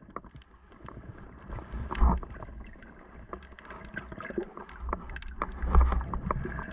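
Underwater sound through a camera's waterproof housing during a swim: muffled sloshing and gurgling water with scattered clicks and knocks, the heaviest thuds about two seconds in and near six seconds.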